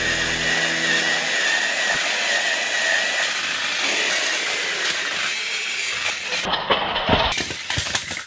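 Plarail toy train motors whirring under load as two engines push against each other on plastic track: a steady high whine over gear and wheel rattle. From about six and a half seconds in come several sharp plastic clatters and knocks as the trains tumble off the track onto the floor.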